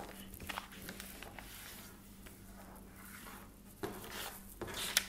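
A sheet of A4 paper rustling and sliding as it is folded and pressed flat by hand on a tabletop, with a few soft brushing strokes, the clearest near the end.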